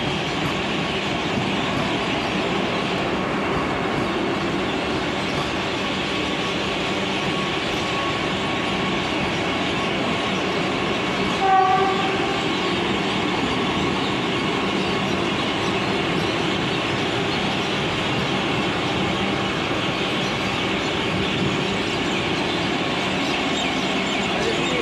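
Vande Bharat Express electric train set running past, a steady rumble of wheels on rails, with one short horn blast about halfway through.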